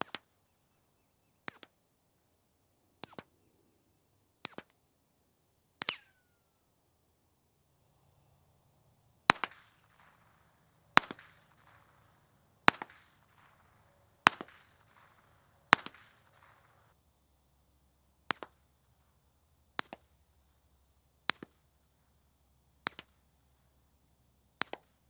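Suppressed .22 pistol shots through a Bowers Bitty suppressor with CCI subsonic ammunition, the suppressor shot dry; the last string is from a Walther PPK/S. Fifteen shots in three strings of five, about one every second and a half, each a sharp crack followed closely by a fainter second crack; the middle five ring on longer after each shot.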